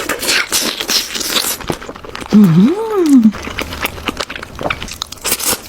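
Close-up crunching and clicking eating sounds of crisp food being bitten and chewed, with a short hummed "mm" from the eater about two and a half seconds in.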